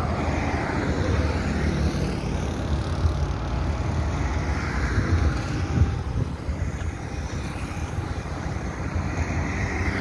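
Road traffic on a main highway, cars, trucks and motorcycles going by, their noise swelling and fading as each passes. Strong wind rumbles on the microphone underneath.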